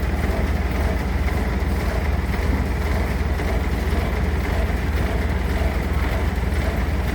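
Heavy road-construction machine's engine running steadily, a constant low rumble that does not change in pace.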